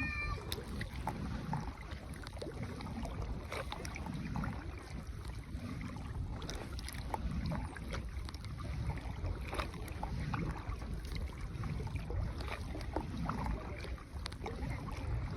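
Small rowing boat being paddled by hand: paddle strokes swish through the water every second or two, with small knocks against the boat, over a steady low rumble of wind on the microphone.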